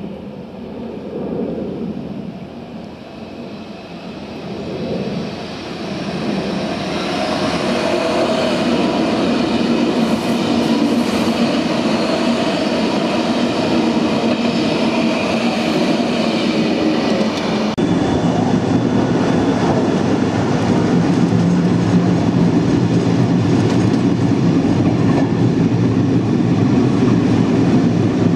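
A Sydney double-deck electric suburban train runs past, growing louder over the first several seconds, with the clatter of wheels on the rails and a steady hum. About 18 seconds in the sound changes sharply to another double-deck electric train running past.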